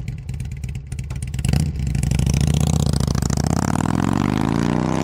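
Motorcycle engine running with a rapid firing rhythm that grows louder about a second and a half in, then rising steadily in pitch as it revs up or accelerates.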